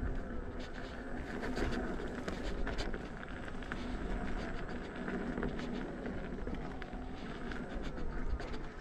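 Gotway MSX electric unicycle rolling along a dirt trail: a steady rolling noise with a low hum, broken by many small clicks and crackles from the tyre running over grit and twigs.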